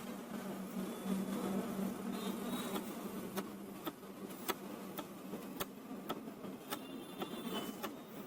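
Canon PIXMA E4270 inkjet printer working through its slow first-print start-up: a steady motor buzz, then from about three seconds in a run of sharp clicks about twice a second as the mechanism tries to pick up the paper.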